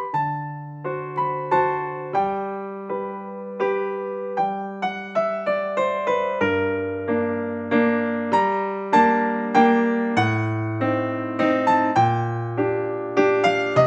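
Background music: a gentle piano or electric piano piece, single notes struck a few times a second over sustained bass notes.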